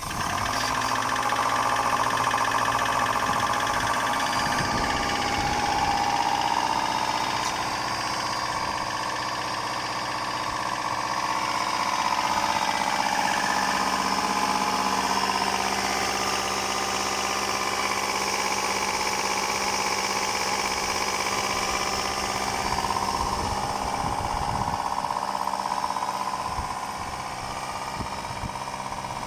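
Subaru EJ201 2.0-litre flat-four running just after a cold start, with a rapid knocking from the pistons: piston slap, which the owner says goes away once the engine warms up. The oil level is very low.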